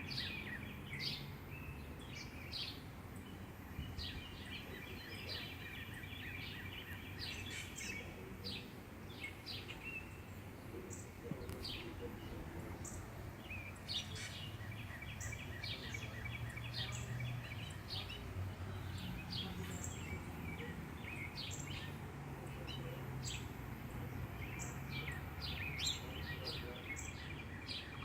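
Birds chirping, short high calls coming every second or so, over a steady low background hum.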